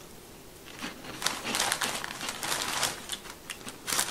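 A crisp snack and its packet crackling and crinkling in quick, irregular clicks as snacks are picked out to dunk.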